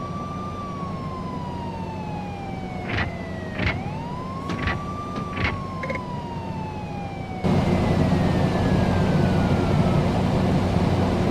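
A wailing siren rising and falling slowly, two long sweeps, with a few sharp clicks in the middle. About seven seconds in, a louder steady rushing noise with a low hum cuts in suddenly as the siren fades out.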